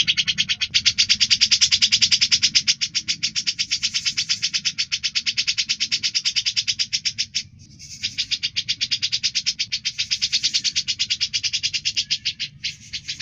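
Cucak jenggot (grey-cheeked bulbul) song: a rapid, rattling trill of about ten notes a second that pauses briefly about halfway through and again near the end.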